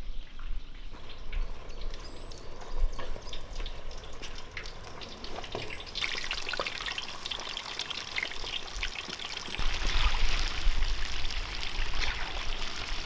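Hot oil sizzling and crackling in a deep-frying cauldron as battered chicken drumsticks are lowered in to fry. The sizzle grows much louder about halfway through.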